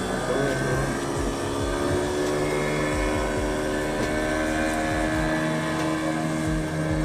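Fishing boat's engine running steadily, its pitch shifting slightly a couple of seconds in.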